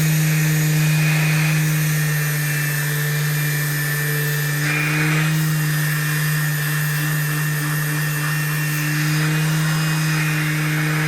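Woodworking power tool running steadily at constant speed, with a strong low hum and a bright hiss.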